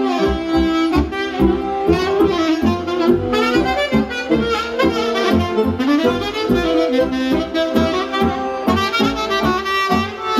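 Live wedding band playing traditional dance music, with a saxophone carrying the tune over a steady, quick beat.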